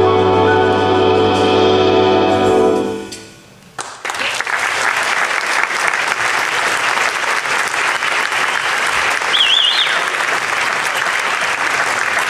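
A big jazz band of brass, saxophones and rhythm section holds its final chord, which fades out about three seconds in. After a short hush, the audience breaks into applause, with a warbling whistle from the crowd partway through.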